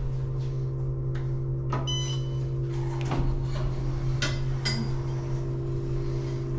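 Otis passenger elevator car riding between floors: a steady hum with a few light clicks, and a short electronic beep about two seconds in.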